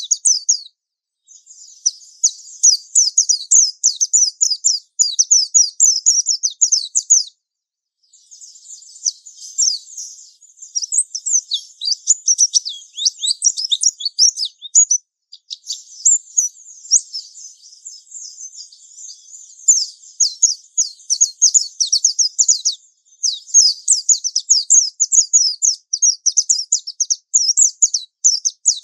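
Japanese white-eye singing in the fast, continuous 'ngalas' style: long runs of rapid, high twittering notes, broken by brief pauses about a second in and about seven seconds in.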